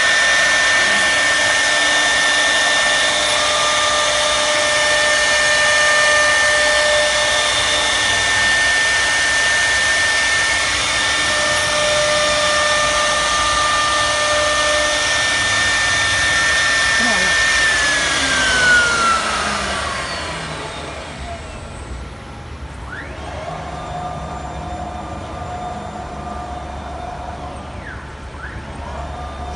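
CNC wood router's spindle running at speed with a steady high whine while the bit cuts the board. About two-thirds of the way through it spins down with a falling whine, leaving a quieter steady machine hum.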